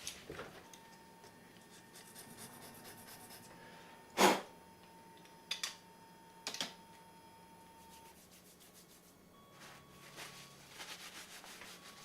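Home-built RepRap Prusa i2 3D printer running, with a faint steady whine that shifts pitch and bouts of quick raspy ticking. A sharp knock about four seconds in is the loudest sound, followed by two lighter clicks.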